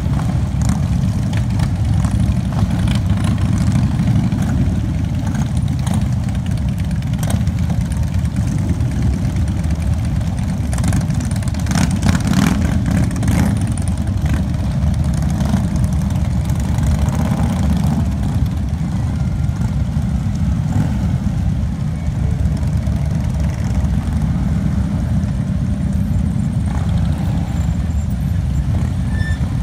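A long procession of Harley-Davidson V-twin touring and cruiser motorcycles riding past at low speed, one after another, their engines running together in a steady low drone.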